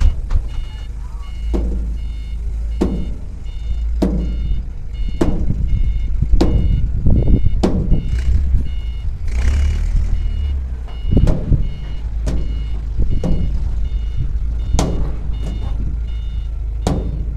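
Vehicle reversing alarm beeping steadily, about two beeps a second, stopping near the end. Under it are a low rumble and a regular thud about once a second.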